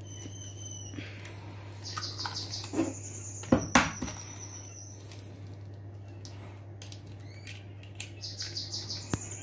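Eggs being cracked open over a bowl, with two sharp knocks about three and a half seconds in and a few lighter clicks. A steady low hum runs underneath, and rapid high-pitched trills come twice, about two seconds in and near the end.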